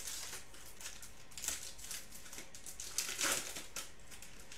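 Foil wrapper of a Panini Prizm football card pack crinkling and tearing as it is ripped open by hand, with louder crackles about one and a half and three seconds in.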